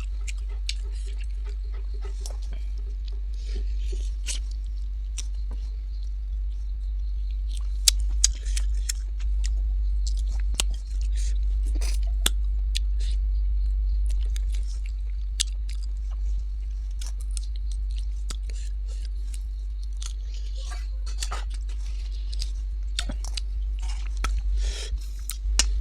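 A person chewing food close to the microphone, with many small crunches and wet clicks of biting and mouth sounds, over a steady low hum.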